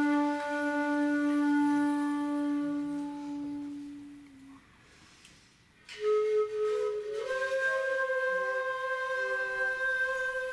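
Shakuhachi bamboo flutes played together in a slow piece. A long held low note fades away about four seconds in, and after a short pause for breath a new phrase enters, steps up in pitch and holds a higher tone, with a few overlapping notes from other players.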